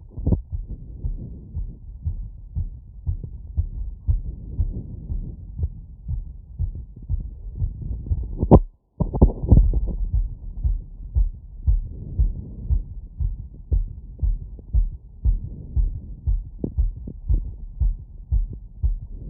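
Fast heartbeat after a 3 km run, about 150 beats a minute, heard through a wireless stethoscope on the chest: a quick run of low thuds. About eight and a half seconds in, a sharp click and a brief dropout break the beat.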